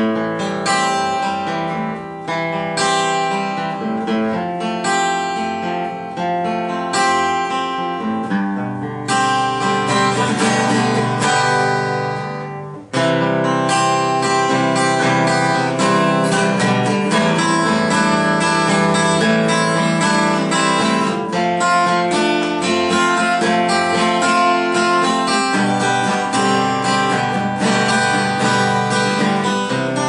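Strimberg JS 02C jumbo acoustic guitar with light 009 strings, played unplugged in a run of plucked and strummed notes and chords, with a slightly bright but soft tone. The playing briefly fades and then resumes sharply about thirteen seconds in.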